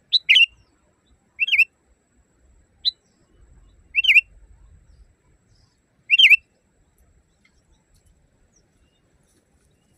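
Sooty-headed bulbul (kutilang) giving about five short chirping calls a second or two apart, each a quick up-and-down flick of a note.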